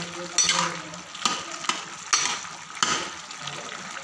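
A metal ladle stirring watery bottle-gourd curry in a metal pot: wet sloshing broken by about six sharp knocks of the ladle against the pot.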